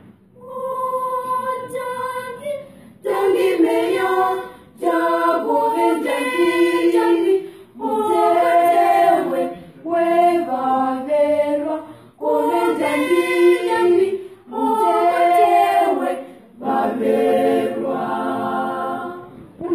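Girls' choir singing unaccompanied, in phrases of two to three seconds with brief pauses for breath between them.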